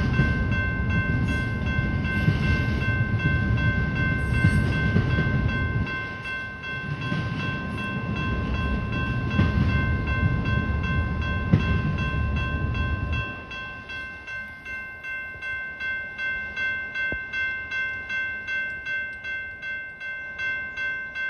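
Union Pacific freight train's wagons rumbling past, with a railroad crossing bell ringing over it. About 13 seconds in the rumble stops as the last cars clear, leaving the crossing bell ringing alone at about two strokes a second.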